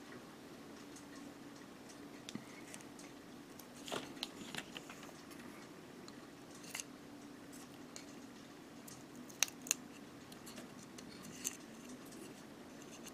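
Faint, scattered small clicks and ticks of hands and a small tool working masking tape off plastic model-kit parts, with two sharper clicks about two-thirds of the way in. A faint low hum lies underneath.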